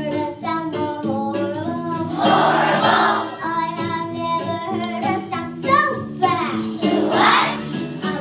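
Children singing a song with instrumental accompaniment, with two short noisy swells about two and seven seconds in.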